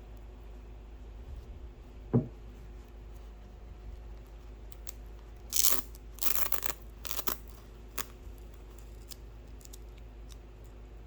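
Handling noises: a single low thump about two seconds in, then a few seconds of rustling and scraping and a sharp click, over a low steady hum.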